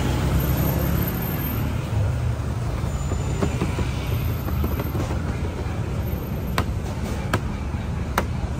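Steady low rumble of street traffic, with three sharp clicks in the last two seconds.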